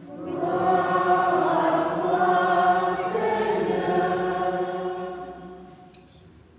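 Several voices singing the sung acclamation that answers the Gospel announcement, holding long notes and fading out in the last second or two. Near the end there is a light metal clink from the thurible and its chains.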